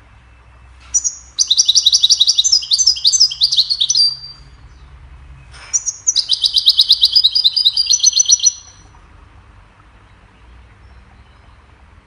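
European goldfinch singing: two phrases of rapid, trilled high notes, each opening with a sharp note. The first starts about a second in, and the second follows a short pause.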